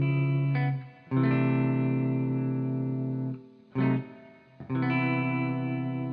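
Background music: guitar chords with an effects-laden tone, struck a few times and left to ring out.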